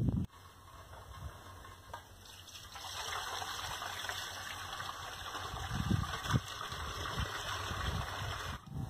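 Water gushing from a pipe outlet into a steel pot, a steady splashing pour that grows louder about three seconds in.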